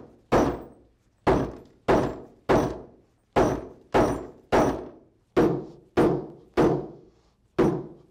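Steel hammer peening the cut-off bolt ends of a bolt solid plate conveyor-belt fastener: about eleven sharp metal blows, roughly in sets of three, each ringing briefly. Peening stops the nuts from backing off and sets the plate teeth fully into the belt carcass.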